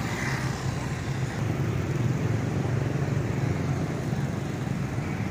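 Steady street traffic noise from motor vehicles running past.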